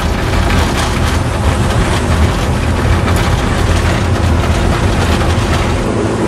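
Engine and road noise inside the cab of a moving vehicle: a loud, steady low rumble.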